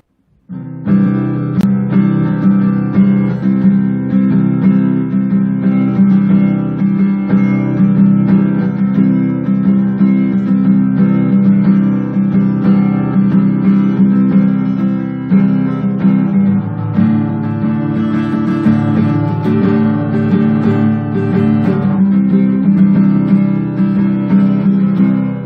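Background music led by a strummed acoustic guitar, starting about half a second in.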